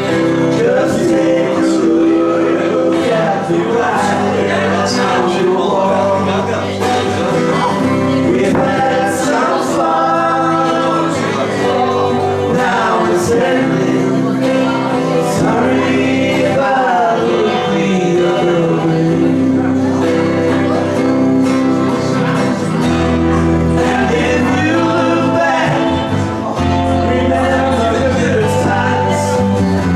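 A small band playing a song live, with men singing over the instruments.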